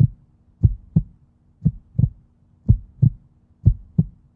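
Heartbeat sound effect: steady lub-dub double thumps, about one heartbeat a second, over a faint low hum.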